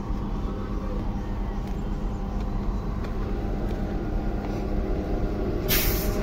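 Mobile crane's diesel engine running steadily as it hoists a tracked excavator off a rail flat wagon, with a short loud hiss near the end.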